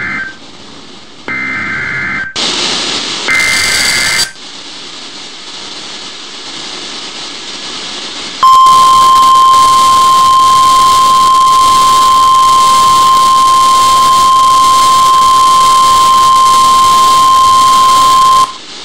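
NOAA Weather Radio receiver sending an Emergency Alert System (SAME) header: the tail of one and two more buzzy two-tone digital data bursts, each about a second long. Radio static hiss follows. About eight seconds in, the loud, steady 1050 Hz Weather Radio alert tone starts, holds for about ten seconds and cuts off suddenly, announcing a severe thunderstorm watch.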